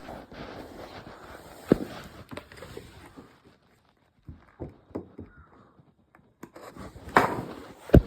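Handling of a plastic action figure and its accessories: scattered light clicks and knocks with rustling in between, a sharper knock about two seconds in and a louder rustle near the end.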